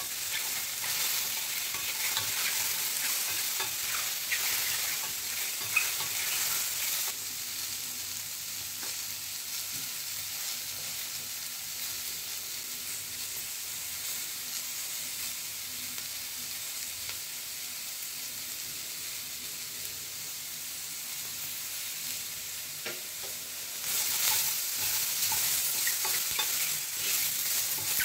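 Mushrooms, capsicum and onion sizzling in oil in a stainless steel pan, with a spatula stirring and scraping through them for about the first seven seconds and again from about four seconds before the end. In between there is only the steady sizzle.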